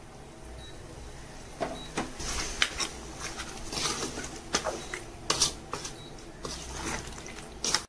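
Spatula stirring mutton curry in an aluminium pot: irregular scrapes and knocks of the spatula against the metal, over a low steady hum.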